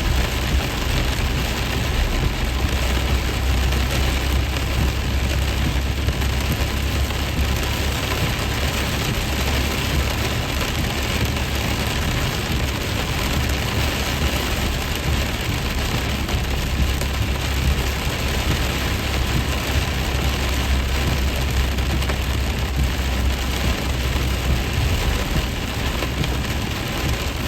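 Heavy rain pouring steadily onto a truck, heard from inside the cab, over a constant low rumble from the truck.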